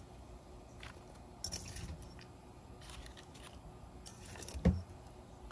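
Plastic spoon scooping potting soil in a metal bowl: soft scraping and rustling with a few light clicks, and one sharp knock about four and a half seconds in.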